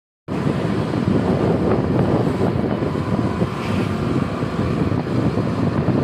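Loud wind buffeting the microphone over the road and engine noise of a moving vehicle, starting abruptly a moment in and holding steady.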